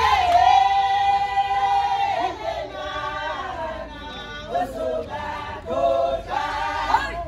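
A group of women singing together without instruments. The song opens on a long held note, then moves into shorter rising and falling phrases.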